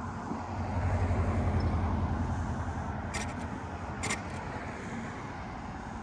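Road traffic: a car's tyre and engine rumble swelling about a second in as it passes close by, then easing off. Two brief sharp clicks come near the middle.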